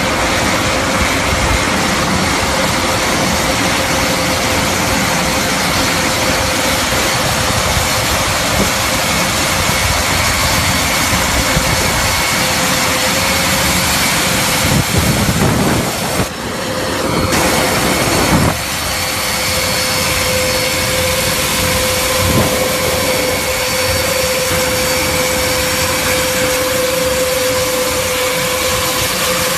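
Airbus A400M's four turboprop engines running with their eight-bladed propellers turning as it taxis: a loud, steady drone with a steady hum running through it, dipping briefly about sixteen seconds in.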